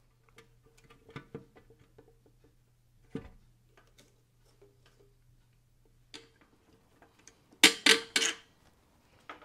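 Metal hand tools and motorcycle parts clicking and knocking as the bike is taken apart, with three loud clanks in quick succession about eight seconds in.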